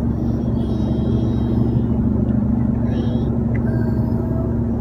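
Car running, heard from inside the cabin: a steady low engine and road rumble with a constant droning hum.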